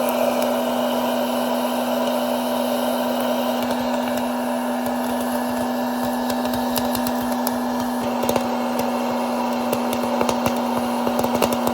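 Hot-air popcorn popper running with a steady, loud motor hum and whir of blown air, kernels popping as sharp pops that come more often in the second half.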